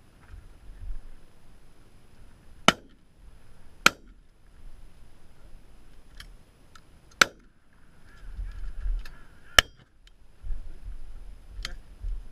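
Shotgun shots: four sharp reports, the first two about a second apart and the next two a few seconds later, with two fainter cracks in between. Wind buffets the microphone between the shots.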